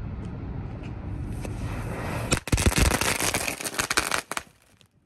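Consumer ground mine firework going off after a steady hiss: about two and a half seconds in, a loud burst of rapid sharp cracks and pops lasting about two seconds, then it cuts off abruptly.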